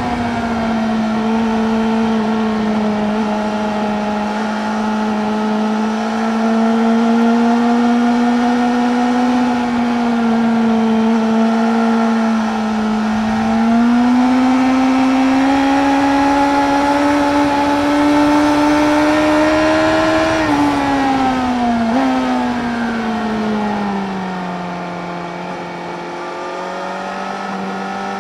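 2017 BMW S1000R's inline-four engine with an Akrapovic slip-on exhaust, heard onboard at speed and held at high revs with pitch climbing slowly. About twenty seconds in the revs drop sharply and keep falling for several seconds, then climb again near the end.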